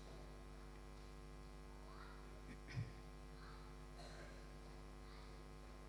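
Near silence in a pause in the sermon: a steady electrical mains hum with faint, brief voices in the room.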